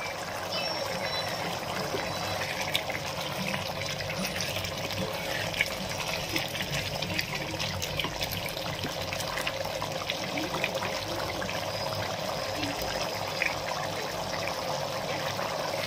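Pot of water with basmati rice and mutton at a rolling boil, bubbling steadily.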